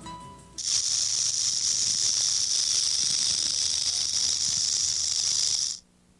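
Rattlesnake buzzing its tail rattle: a steady, high, dry buzz that starts about half a second in and cuts off suddenly near the end.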